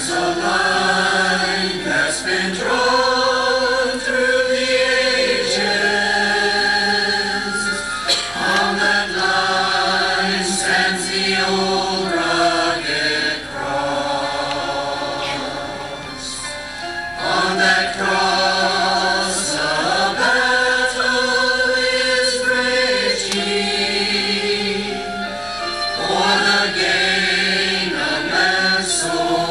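Mixed choir of men's and women's voices singing together, in phrases of held chords with short breaks between them.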